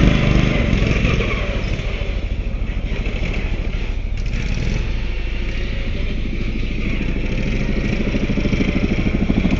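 Small engine of a modified riding lawnmower running steadily with a fast, even pulse, growing a little louder near the end.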